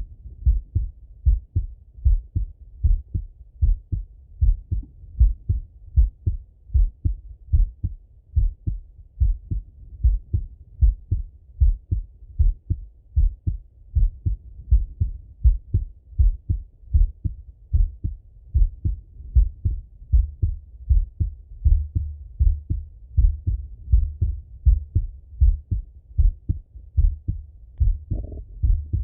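A man's heartbeat heard through a Littmann stethoscope: a steady, slow run of paired low thuds (lub-dub), about once a second.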